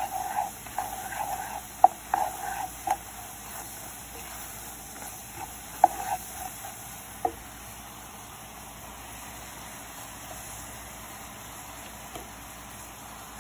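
Sugar syrup with strips of orange peel bubbling steadily in a frying pan as it boils down towards crystallizing. For the first seven seconds or so a spatula stirs and scrapes the pan with sharp clicks and taps; then only the bubbling hiss remains.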